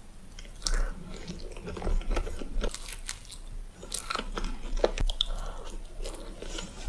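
A person biting into and chewing a flaky puff-pastry cream puff, the crisp pastry layers crackling and crunching with each chew.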